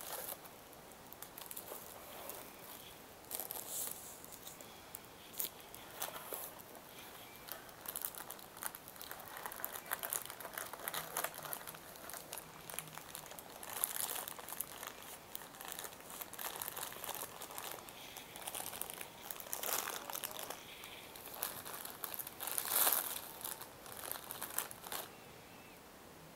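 Clear plastic wrapping crinkling and rustling as hands pull it out of a cardboard box, in irregular bursts that stop near the end.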